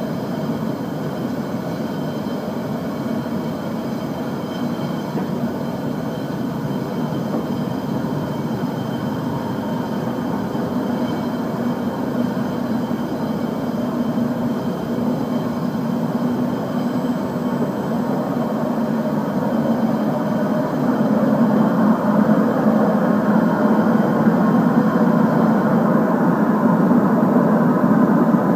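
Soft PVC hose extrusion line running: a steady machine hum and whir with faint high, even tones above it. It grows louder from about two-thirds of the way in.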